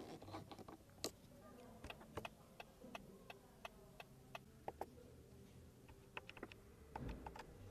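Faint, scattered clicks and taps of a Lexus ES300h's dashboard controls being handled: the centre air-vent louver and the climate-control buttons. A soft thump comes near the end.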